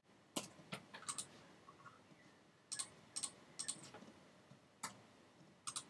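Faint computer keyboard and mouse clicks, about a dozen at irregular intervals, some in quick pairs, as vertices are selected and merged with keyboard shortcuts.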